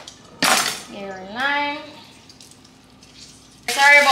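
Kitchen utensils and dishes clattering briefly about half a second in. A child's voice calls out with rising pitch a second later, and again near the end.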